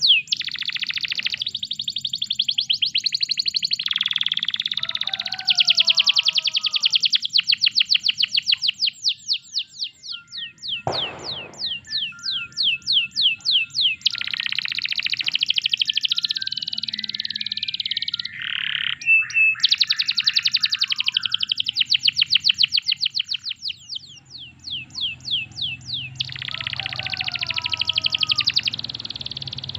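Domestic canary singing long rapid trills of repeated high notes, with changing tours and short pauses, and a few lower warbled phrases mixed in.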